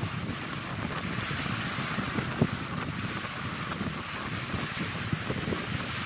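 Wind buffeting the microphone in a gusty low rumble over small waves washing up on a sandy beach, with one brief knock about two and a half seconds in.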